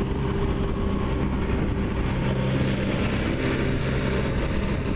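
Steady low engine drone with an even hum of a few held tones and a rumble underneath, unchanging throughout.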